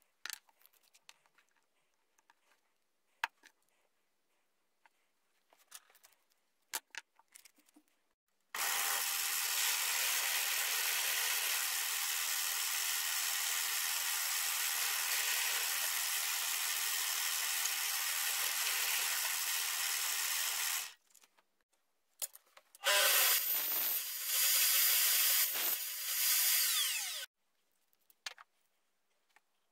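Benchtop drill press running steadily for about twelve seconds while drilling a round wooden knob, with an even motor whine. After a short gap a louder, uneven run of power-tool noise lasts about four seconds. Before the drill starts there are only scattered small clicks of parts being handled.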